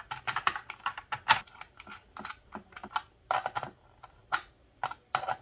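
Quick, irregular clicks and light taps of small metal hardware, a washer, a ring terminal and a nut, being handled and fitted onto the terminal stud of a blade fuse block.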